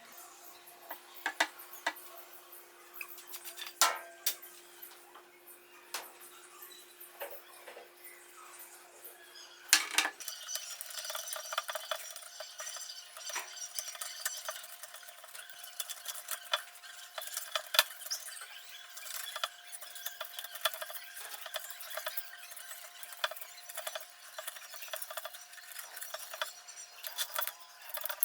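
Hand work on small hard objects: scattered light clicks, taps and clinks, with a sharp knock about ten seconds in, after which the handling grows busier.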